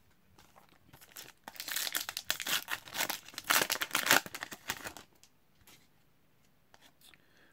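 Foil wrapper of an Upper Deck Tim Hortons Team Canada hockey card pack being torn open and crinkled, a dense crackling from about one and a half seconds in to about five seconds in.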